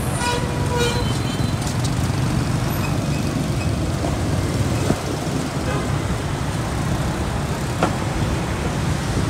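Steady street traffic: motorbike and car engines running and passing as a continuous low rumble, with a short pitched tone in the first second.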